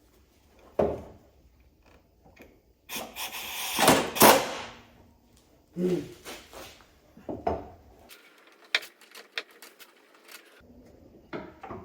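Metal hand tools (socket, extension and breaker bar) clanking and rattling against the truck's underside: a sharp knock about a second in, a loud clattering rattle around three to four seconds in, then scattered knocks and light clicks.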